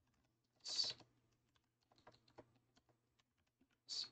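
Faint typing on a computer keyboard, scattered single keystrokes. Two short hissy sounds, about a second in and near the end, are the loudest things, over a faint steady low hum.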